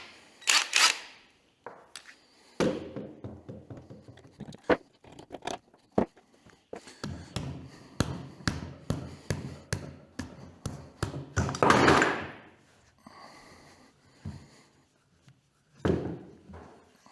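Knocks and clanks of tools and metal parts during motorcycle teardown, with short bursts of an air impact wrench (rattle gun). The loudest burst comes about twelve seconds in.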